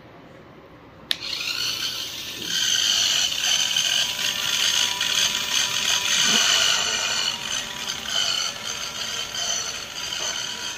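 Red toy remote-control supercar, set off with a click about a second in, then running with a steady, high-pitched sound of several tones that grows louder in the middle.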